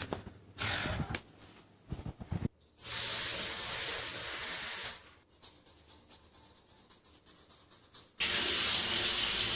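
A bathroom tap runs water into a sink in two bursts of about two seconds each, one near the start and one near the end. Between them comes faint, rapid scratching of teeth being brushed.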